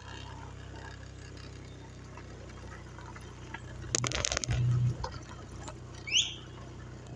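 Motorcycle engine running at low speed on a gravel track. About four seconds in there is a loud burst of rattling as the bike goes over the bumpy ramp, and the engine sound swells for about a second after it. A short rising high chirp comes near the end.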